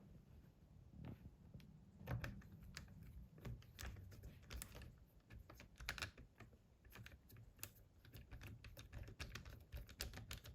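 Faint, irregular small clicks and ticks of a small screwdriver fitting the screws that hold a new laptop display panel in place.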